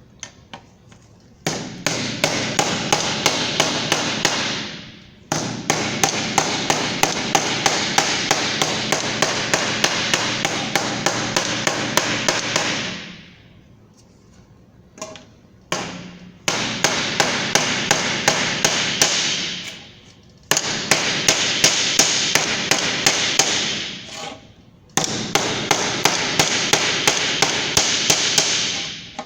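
Hammer striking a sheet-metal crimped seam in rapid runs of about four to five blows a second, the thin metal ringing between blows; the seam of a bottom crimped onto a rim is being hammered down flat against a solid edge. The blows come in about five runs separated by short pauses.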